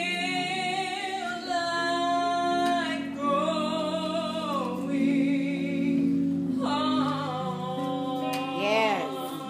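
A woman singing a gospel song solo into a microphone, holding long notes with vibrato, over sustained accompanying chords.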